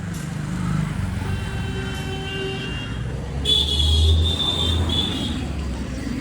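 Road traffic with vehicle horns: a horn sounds a second or so in, then a louder, higher-pitched horn toots twice about three and a half seconds in, over the low rumble of a passing engine.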